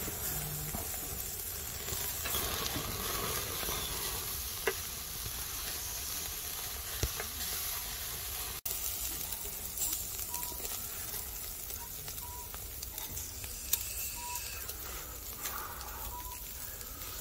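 Meat sizzling on a grill over charcoal: a steady hiss with a few sharp clicks and crackles.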